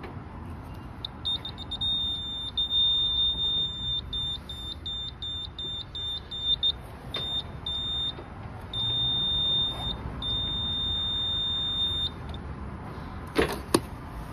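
Rizumu Roboline CP-S38G laser level giving high electronic beeps: a run of short, irregular beeps, then longer held tones of a second or more. Near the end there are two sharp clicks.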